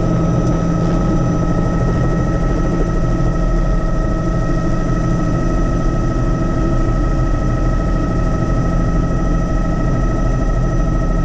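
Helicopter in flight: a steady, even engine and rotor rumble with a constant high-pitched whine running over it.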